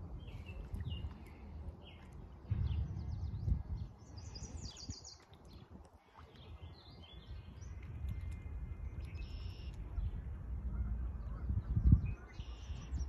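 Small birds chirping and calling in short notes, with a quick run of calls about four to five seconds in, over the low, uneven rumble of wind on the microphone. A single low bump near the end is the loudest sound.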